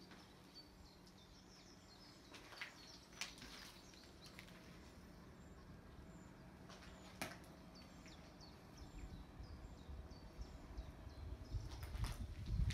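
Faint small birds chirping outside, with a few sharp crunches of footsteps on broken glass and debris. The footsteps grow heavier and louder over the last few seconds.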